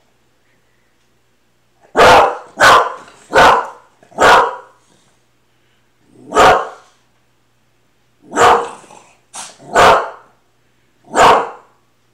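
A dog barking loudly in short, sharp barks: a quick run of four about two seconds in, then five more spaced a second or two apart. It is the alert barking of a house dog guarding at the window.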